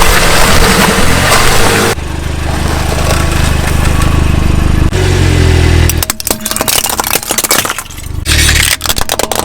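Car engine running in several short, abruptly cut segments, then a rapid series of sharp cracks and crunches as the tyres crush brittle objects in the last few seconds.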